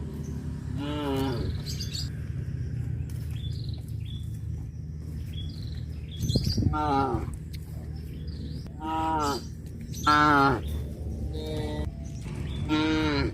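Cattle mooing in short calls, each falling in pitch, about six times, with faint bird chirps and a steady low rumble behind.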